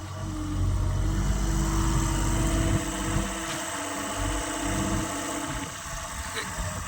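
Diesel engine of a Sumitomo S100 hydraulic excavator running, louder for the first three seconds or so, then dropping to a lower, steady level.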